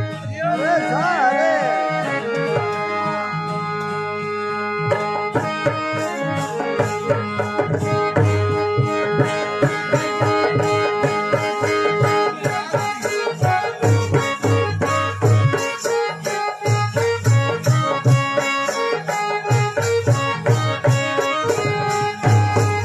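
Instrumental interlude of a Rajasthani folk bhajan: a harmonium plays the melody over a steady tandura drone, with a dholak drumming a fast rhythm. The drumming grows denser about six seconds in.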